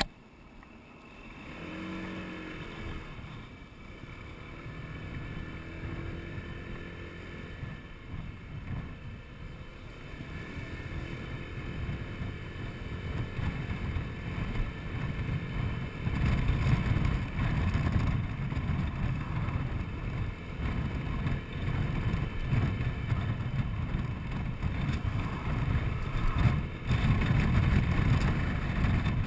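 Honda Forza 125 scooter's single-cylinder engine moving off from slow traffic and riding along, with wind noise on the microphone that grows louder as speed builds, strongest from about halfway.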